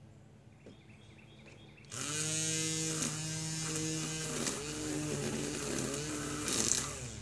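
Gas string trimmer's small engine starting up about two seconds in and running, its pitch dipping and rising several times as the throttle is worked.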